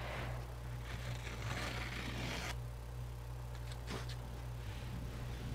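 Masking tape being peeled off the edge of watercolor paper: a steady ripping hiss for about two and a half seconds that cuts off suddenly, then a couple of faint ticks.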